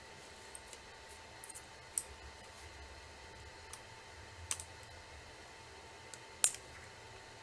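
Scattered sharp clicks and taps of small laptop parts being handled during a hard drive swap, about eight in all and irregularly spaced, the loudest one about six and a half seconds in.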